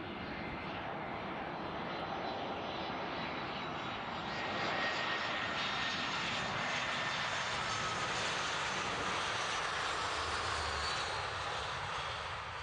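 easyJet Airbus A320-family airliner passing close on its landing approach: the jet engines give a steady rushing noise with a faint whine. It swells about four seconds in, stays loud, and eases off near the end.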